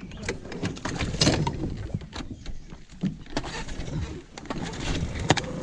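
Irregular knocks and clunks from a Tohatsu outboard motor being tilted down from its raised position and taken by the tiller, getting ready to run in reverse.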